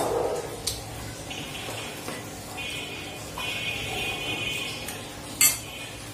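Eating by hand from a stainless steel plate: rice being mixed and scooped with the fingers, with soft knocks of a serving spoon. A sharp clink of a metal spoon set down in a ceramic bowl comes about five seconds in and is the loudest sound.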